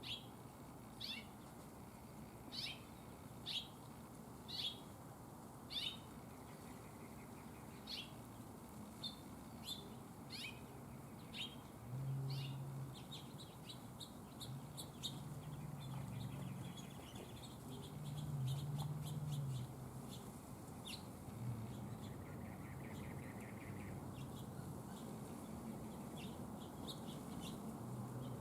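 Small songbirds giving short, sharp chip calls, about one a second at first and then more varied, with a short buzzy trill near the end. A low rumble comes and goes in the middle and is louder than the birds.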